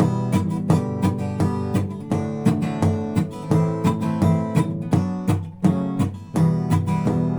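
Acoustic guitar strummed in a steady rhythm, with percussive knocks on the guitar body worked into the strumming pattern.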